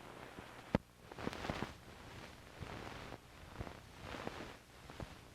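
Hiss and crackle with irregular clicks and pops, one loud pop about a second in, typical of surface noise from an old film transfer with no recorded sound.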